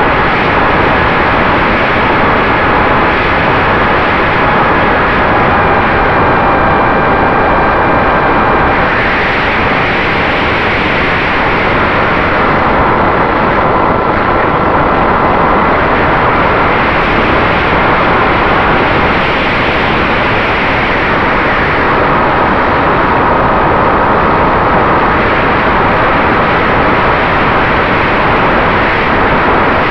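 Onboard audio of a Ritewing Mini Drak FPV flying wing in flight: loud, steady wind rush over the airframe with the electric motor and propeller whining underneath, its pitch shifting up and down a few times with the throttle.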